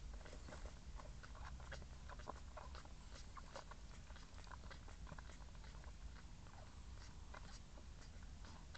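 Faint, scattered small wet clicks and smacks with an occasional tiny squeak from a Schnauzer mother dog and her newborn puppies moving against her in the whelping bed, over a steady low hum.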